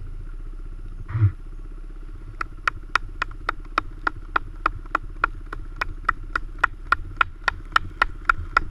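A dirt bike idling low and steady. A single thump comes about a second in. From about two and a half seconds in there is a sharp, regular clicking, about three to four clicks a second, louder than the engine.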